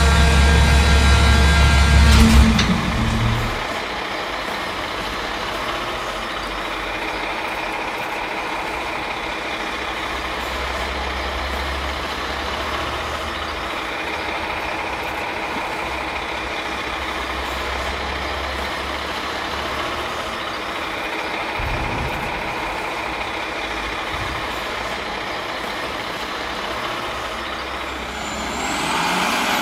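Garbage truck's diesel engine sound: a loud run with several held tones cuts off with a clunk about two seconds in, then the engine idles steadily. Near the end it grows louder, with rising high tones.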